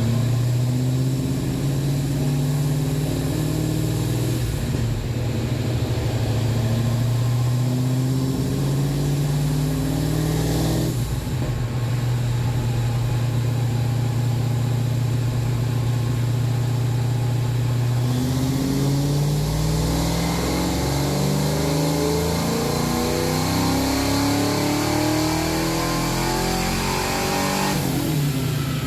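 Car engine running, steady at first, then rising in pitch again and again in the second half as it accelerates. It is the engine after its vacuum leaks have been fixed.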